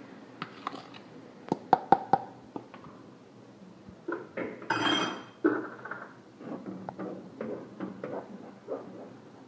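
A spoon tapping and scraping against a saucepan and a cup as cocoa powder is added to condensed milk and stirred in. A quick cluster of sharp taps comes about two seconds in, followed by scattered scraping and stirring noises.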